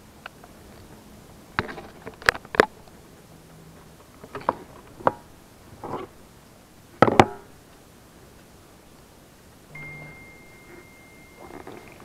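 Scattered knocks and sharp clicks of fishing tackle being handled in a boat, hands and gear striking the hull; the two loudest come about seven seconds in. A faint thin steady high tone sounds for about two seconds near the end.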